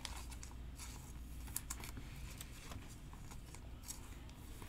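Light, irregular clicks and taps of hands and fingernails handling trading cards and a foil card-pack wrapper.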